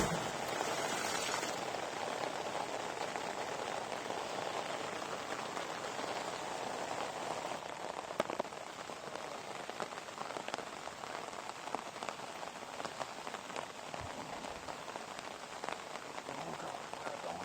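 Steady rain falling, a dense patter of drops with a few sharper taps now and then.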